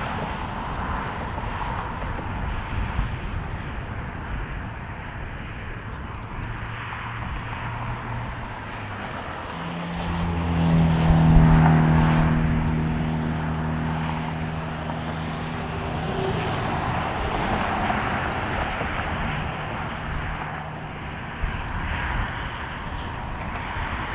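Boeing 737-800 jet airliner taking off: engine noise swells about ten seconds in, peaks, then fades as it passes, with wind buffeting the microphone throughout.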